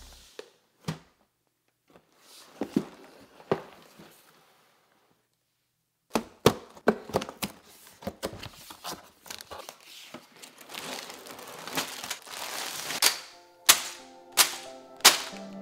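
A LEGO set's cardboard box being handled and opened, with scattered knocks and thunks of the box and its flaps, then a stretch of crinkling and rustling as plastic parts bags are tipped out onto a table. Music comes back in near the end.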